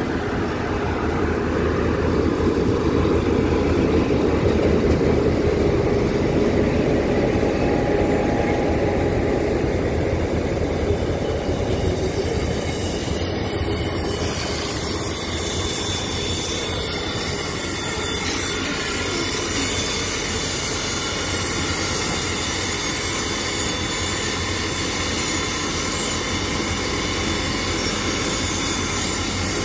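A slow train rolling past close by: first the R167 diesel-electric locomotive with its engine running and a heavy rumble, then the DT668 steam locomotive, with a steady steam hiss that takes over after about twelve seconds.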